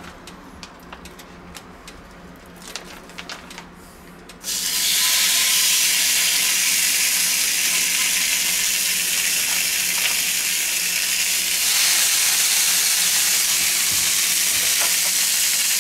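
Marinated steaks sizzling on the hot ribbed plates of an OptiGrill contact grill: after a few faint handling clicks, a steady loud sizzle starts suddenly about four and a half seconds in as the first steak goes down, and it gets a little louder later on.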